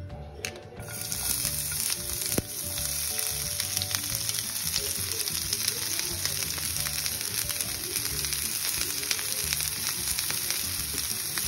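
Sliced onion and green capsicum sizzling in hot oil in a frying pan: the sizzle starts suddenly about a second in as the vegetables hit the oil and then holds steady. There is one sharp tap a couple of seconds in.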